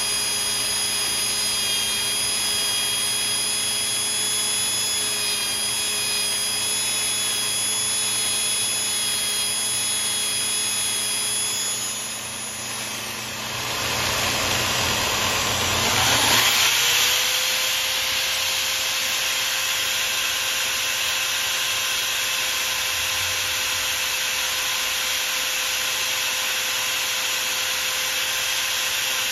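Motor-driven spindle turning a white plastic slug, with a rotary tool's cut-off disc held against it, both motors whining steadily with several high tones. About halfway through the high tones stop and the level dips, then a motor speeds up in a rising whine and runs on at a steady, higher pitch.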